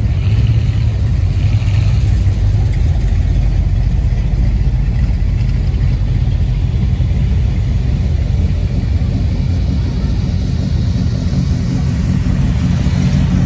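Classic cars' engines running as they cruise slowly along a street, a steady deep engine note.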